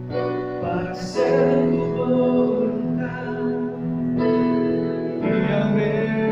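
Spanish-language worship song: held notes sung over sustained instrumental chords that change about every second, with a brief hiss about a second in.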